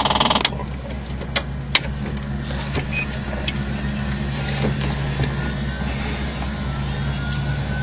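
A loud buzzing noise cuts off about half a second in, leaving a steady low electrical hum from a Jabiru light aircraft's cockpit with the engine still off. Two sharp clicks come about a second later, and a few fainter ones follow, as cockpit switches are worked.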